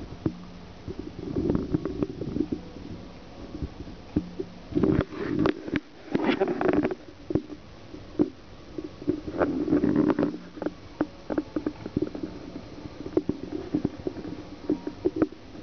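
Irregular scratchy rustling and sharp clicks from a string-and-fluff cat toy being rubbed and dragged over the woven paper-cord surface of a cardboard cat house, in clusters, busiest about five seconds in and again around ten seconds.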